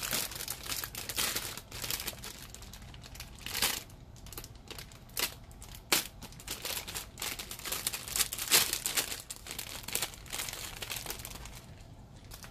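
Thin clear plastic bags crinkling as bagged model-kit runners are pulled from the box and handled, in an irregular run of crackles.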